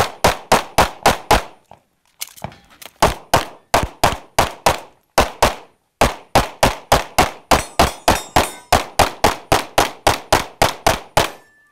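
Open-division 2011 pistol in 9mm Major firing rapid strings of close, sharp shots, about four to five a second, in three strings broken by short pauses about 2 and 6 seconds in as the shooter moves between positions.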